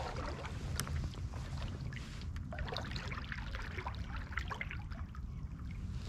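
A paddle dipping into calm floodwater, with small irregular splashes and drips of water running off the blade, over a low steady rumble.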